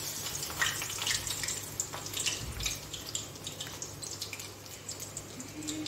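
Hot oil sizzling and crackling around battered water lily petal fritters (pakoras) frying in a pan: a steady hiss with many small, irregular pops.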